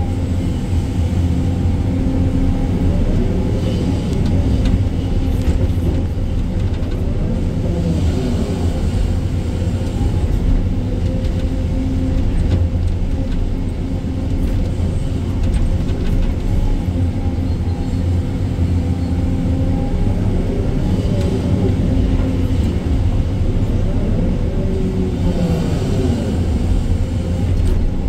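Sany 305 excavator's diesel engine running steadily under working load, heard as a heavy low rumble, its pitch bending up and down a few times.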